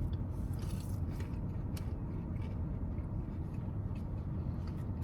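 Steady low rumble, like a vehicle running, with a few faint clicks and taps.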